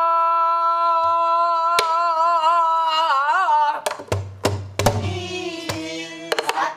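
A woman's pansori singing voice holds one long note that breaks into a wide, wavering vibrato about three seconds in, then carries on at a lower pitch. A buk barrel drum, struck with a stick and the palm, gives a single tap early on and then a handful of sharp low strokes in the second half.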